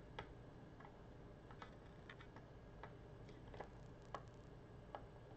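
Faint, irregular small clicks and ticks, about ten in all, from thin wire leads and a small circuit board being handled and pushed into place during soldering work.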